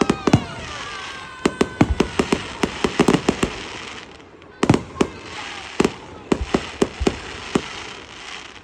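Fireworks display: a rapid, irregular string of sharp bangs with crackling between them, and several falling whistles in the first second or so. The bangs come less often after about four seconds.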